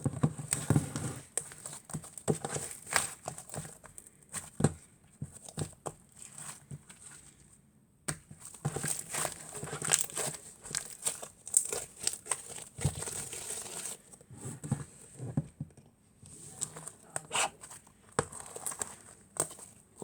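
Fluffy liquid clay being squished and pressed by hand, giving irregular crinkly, crackling squishes with a brief pause about eight seconds in.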